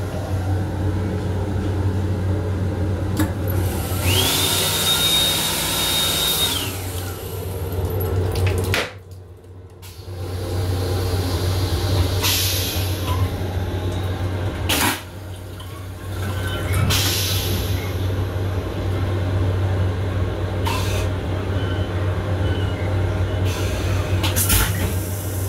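Toilet in a Metro-North M7 railcar restroom flushing: a loud hiss of rinse water with a steady high whistle for about two seconds, then a sudden drop in sound near nine seconds and a few knocks. A steady low hum of the railcar runs underneath.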